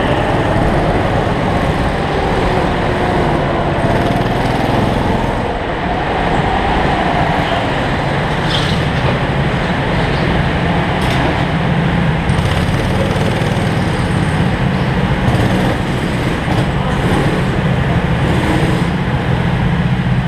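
Small go-kart engines running close up from the driver's seat, easing off from track speed and then running steadily at low revs as the kart rolls into the pit lane and waits behind other karts.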